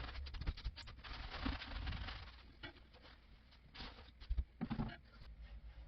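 Hands working on the parts inside a toilet tank: a run of light clicks and rubbing, then a few separate knocks near the end.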